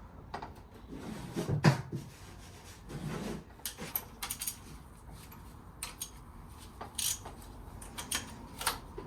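Hand tools and metal engine parts clinking and knocking in scattered taps, the loudest knock about a second and a half in, as work starts on unbolting the cylinder head of a Land Rover Series engine.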